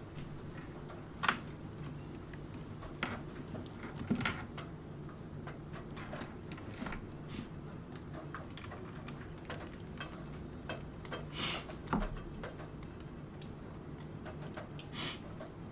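Computer keyboard keys clicking sparsely and irregularly, a keystroke every second or so, with a few longer rustling strokes, over a steady low background hum.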